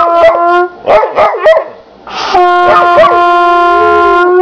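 Trumpet holding one steady note that ends about half a second in and starts again about two and a half seconds in, held to the end. A young dog howls and yips along, with quick wavering calls in the gap between the notes and a rising howl over the second note.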